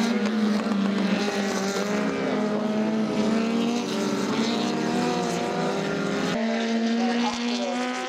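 Engines of historic open-wheel racing cars running hard past on the circuit, their pitch rising and falling as they go through the corners. The sound changes abruptly about six seconds in.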